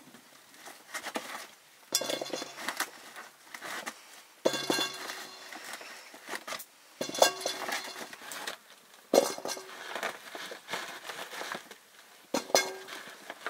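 Metal cooking vessels and utensils clinking and knocking against each other. The knocks come every two to three seconds, each with a brief metallic ring.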